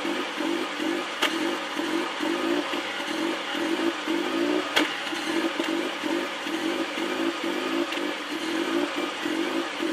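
Mazda MX-5 Miata NB2's four-cylinder engine idling roughly on a cold start, its note pulsing unevenly, with two sharp ticks along the way. The rough cold idle has only appeared since the weather turned cooler.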